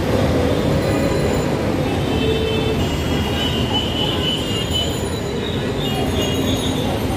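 Busy city street traffic: a loud, steady mix of engines and tyres, with drawn-out high-pitched squeals over it from about two seconds in.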